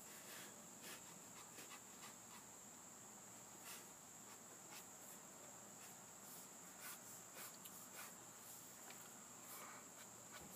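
Faint, scattered scratches of a pen sketching on paper, over a steady high-pitched tone.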